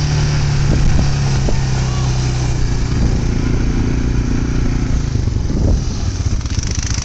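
ATV engine running steadily while riding, its note shifting a little partway through and getting more uneven near the end.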